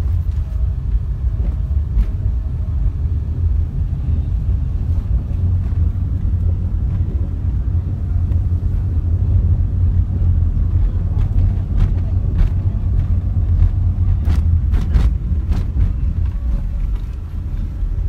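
Steady low rumble of a car driving, engine and road noise heard from inside the cabin, with a few sharp clicks or knocks about fourteen to fifteen seconds in.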